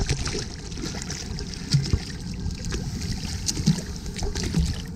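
Water sloshing and lapping around the hull of a small fishing boat, with steady wind noise and scattered light clicks.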